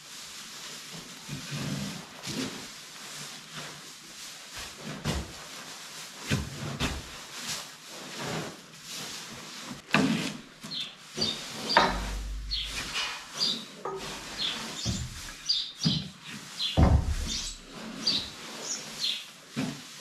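Pitchfork spreading straw bedding in cow stalls: straw rustling and swishing, with the fork knocking and scraping on the concrete. Small birds chirp repeatedly through the second half.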